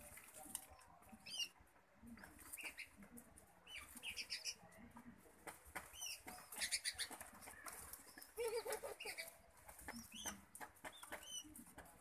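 Young spotted dove begging while a ringneck dove feeds it beak-to-beak: faint, repeated high squeaks with soft rustling and wing-fluttering against the nest.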